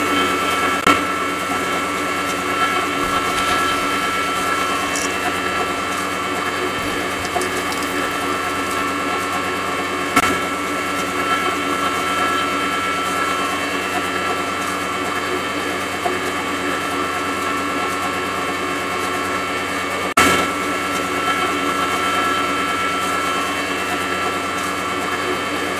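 Small electric motor driving a belt-driven miniature rice mill, running at full speed with a steady high whine. There are a few brief sharp clicks, about ten and twenty seconds in.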